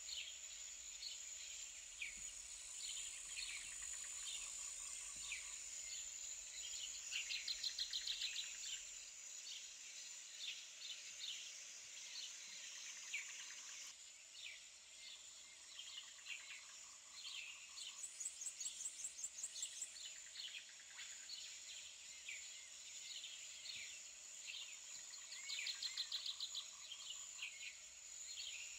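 Outdoor birdsong: many small birds chirping over a steady high-pitched insect drone, with a fast pulsing trill three times.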